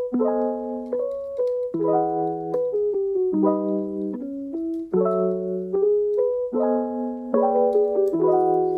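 Background music: a gentle piano tune playing chords and a melody in a steady, repeating pattern.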